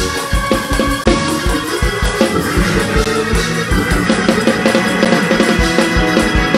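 Praise-break shout music: organ playing held chords over a fast, steady drum beat.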